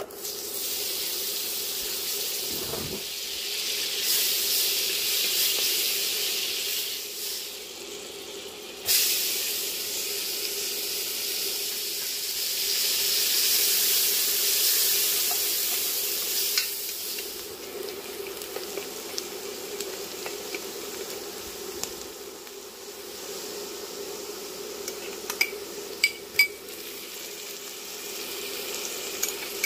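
Butter sizzling in an enamelled cast-iron Dutch oven, then a sudden louder sizzle about nine seconds in as chopped onion goes into the hot butter and is stirred, over a steady low hum. Near the end a few sharp clinks of a spoon on a small glass bowl as ginger and garlic paste are added.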